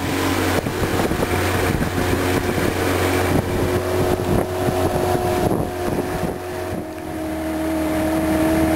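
Motorboat engine running steadily, with wind buffeting the microphone; the engine note shifts about seven seconds in.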